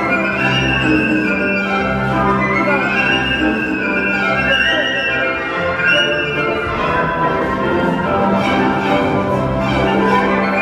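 Orchestral music with violins carrying the melody over held lower notes, playing continuously.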